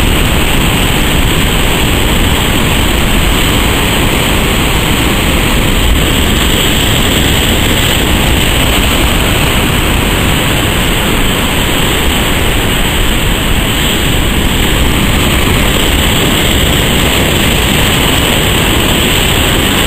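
Heavy, storm-driven surf breaking in a steady, even wash of noise, with no single wave crash standing out.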